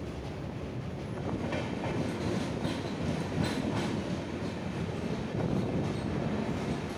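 Indian Railways passenger train running on the track: a steady low rumble with clicking wheel clatter over rail joints, a little louder from about a second and a half in.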